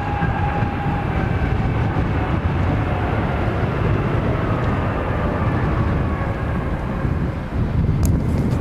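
Bombardier Challenger 350 business jet's turbofan engines, heard as a steady rush with a faint whine that slowly falls in pitch.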